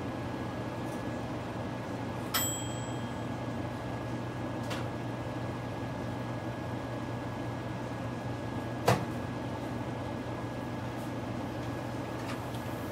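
Steady low hum of a kitchen appliance. About two seconds in there is a click with a short beep, and about nine seconds in a louder click.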